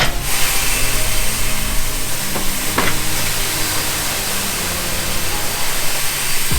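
Steady loud hiss of compressed air being let out on a grain road-train truck, starting suddenly, with the truck's engine running underneath.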